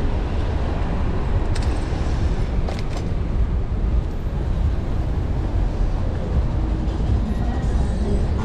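Street traffic noise heard from a bicycle riding through slow city traffic: a steady low rumble, with a few faint clicks about two to three seconds in.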